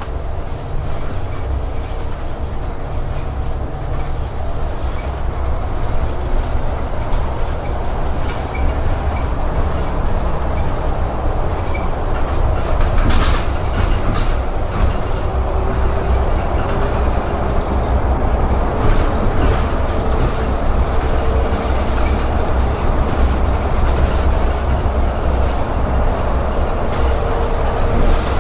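A city transit bus running heard from inside its cabin: a steady low rumble from the drivetrain and wheels, with a faint whine that comes and goes and the odd rattle of the body and fittings. The noise grows a little louder after the first few seconds as the bus gathers speed into the tunnel.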